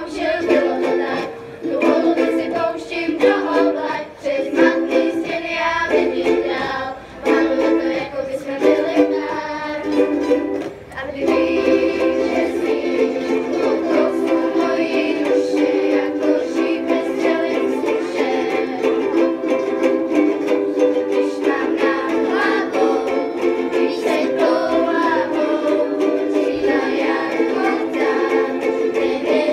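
Ensemble of ukuleles and guitars strumming chords together. The music comes in short phrases with brief breaks for the first eleven seconds or so, then settles into steady, continuous strumming.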